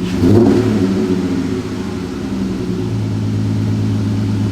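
Dodge Challenger's 3.6-litre V6 idling steadily and evenly, no longer misfiring on cylinder 1 after new spark plugs.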